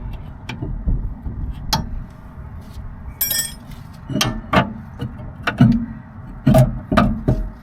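Wind buffeting the microphone, with a series of sharp metallic clinks and knocks as a brake caliper and tools are handled on a car's front hub. One ringing chink comes about three seconds in, and louder knocks come near the end.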